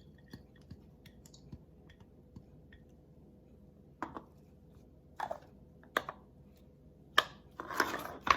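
Kitchen utensil clicking and knocking against a bowl as ingredients are added to mashed avocado for guacamole: faint small clicks at first, then about five sharper knocks in the second half and a short scrape near the end.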